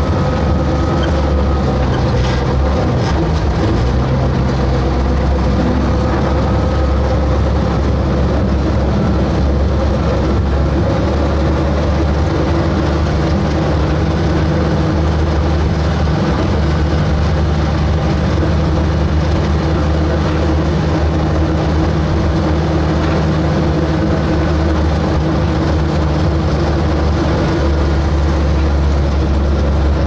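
Steady running of the engine of Otaki Forest Railway locomotive No. 142, a small narrow-gauge diesel, heard from inside its cab while under way.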